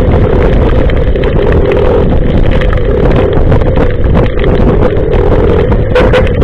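Moving motorcycle in heavy rain: steady wind and wet-road noise on the microphone over the engine's drone, with scattered ticks.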